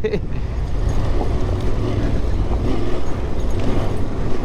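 Yamaha Ténéré 700 parallel-twin motorcycle running on an off-road trail, heard as a steady low rumble mixed with wind noise on the microphone.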